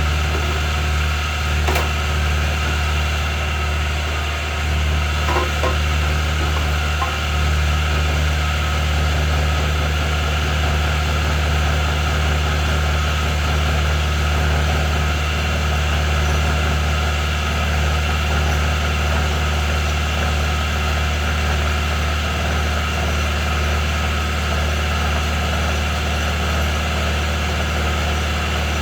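Grizzly G0519 milling machine running steadily while taking a light facing pass on a metal spacer, a constant low hum with a few faint clicks in the first several seconds.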